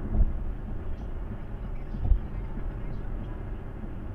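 Steady road and tyre noise of a car driving on a wet expressway, heard from inside the cabin through a dashcam microphone. Two short low thumps come about two seconds apart.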